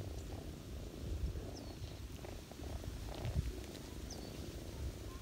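Ginger cat purring steadily, a low rapid rumble, with two short high chirps that fall in pitch.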